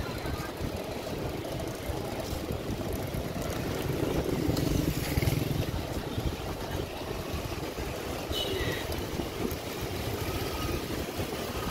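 City street traffic: motorbike and car engines running and passing, louder about four to five seconds in.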